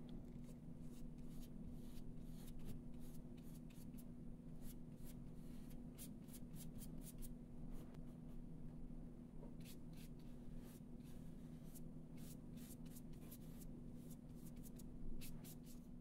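Faint, irregular scratchy taps and strokes of a paintbrush laying acrylic gouache onto paper, over a steady low hum.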